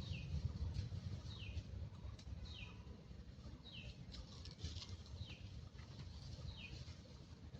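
A bird repeating one short, falling call six times, about once every second and a quarter, over a low rumble that fades away.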